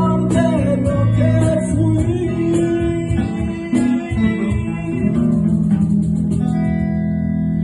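Band music with guitars and drums, playing after the last sung line and settling into a long held chord near the end.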